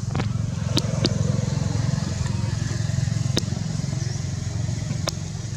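A motor vehicle engine running steadily nearby, a low rumble, with a few sharp clicks scattered through it.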